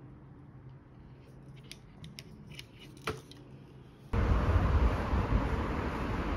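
A few light clicks of a plastic anti-theft security tag being handled against a water bottle. About four seconds in, these cut suddenly to loud, steady outdoor street noise with a low rumble.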